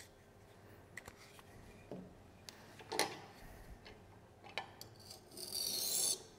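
Light metal clicks and knocks as a knife jig is set onto and shifted along the steel support bar of a Tormek T-8 wet grinder, the sharpest knock about three seconds in. A short scraping hiss of about a second follows near the end.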